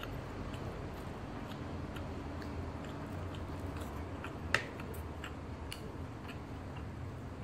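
Chewing and small mouth clicks of someone eating roti prata by hand, with one sharp click a little past halfway.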